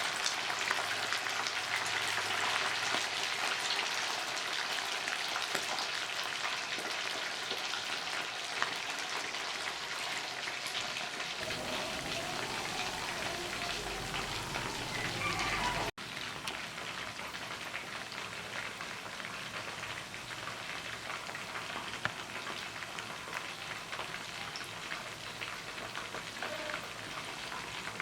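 Chicken wings frying in hot oil: a steady sizzle thick with small crackling pops. It breaks off for an instant about halfway through, then goes on a little quieter.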